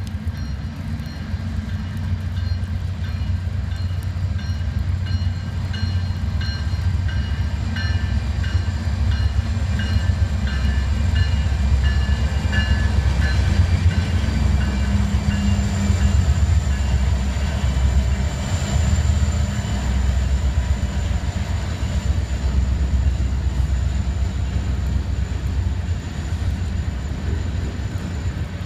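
Norfolk Southern freight train's diesel locomotives, a GE C44-9W leading EMD SD70M, SD70M-2 and two SD50E units, passing close with a steady low engine rumble. It grows louder toward the middle as the locomotives go by, then eases as the train moves on.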